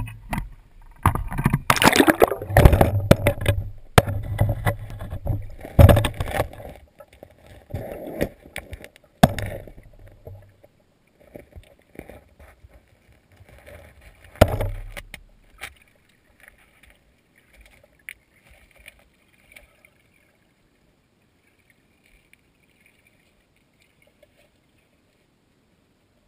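Shallow creek water splashing and sloshing around a camera as it is put into the stream, in loud irregular bursts for about the first ten seconds and once more a few seconds later. After that only a faint underwater gurgle is left.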